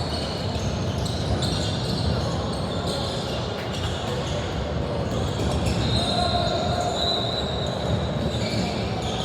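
Basketball game sound in a gym: a ball bouncing on the court amid the murmur of voices in a large echoing hall, with brief high squeaks now and then.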